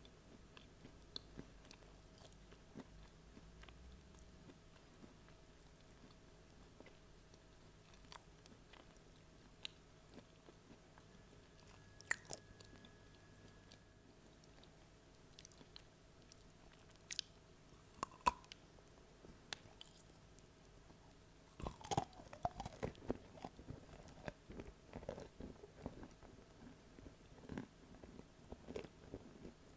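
Close-miked biting and chewing of chunks of edible clay: faint, scattered crunches at first, becoming a dense run of crunching about two-thirds of the way through.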